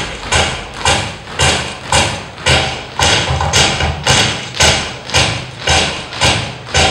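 A troupe of dancers stamping in unison in a march-like routine, an even beat of about two stamps a second, with music underneath.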